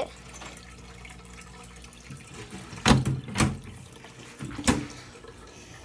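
Water in a turtle tank trickling steadily over a low hum, with three sharp knocks about three, three and a half and nearly five seconds in.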